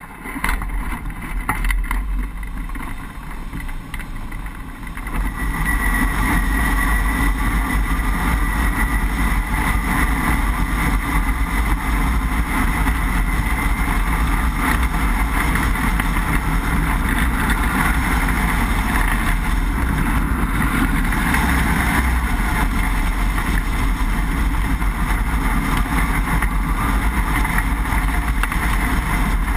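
Wind rushing over a microphone mounted on a hang glider's wing, a steady noisy rush that grows louder about five seconds in as the glider takes off and gathers speed.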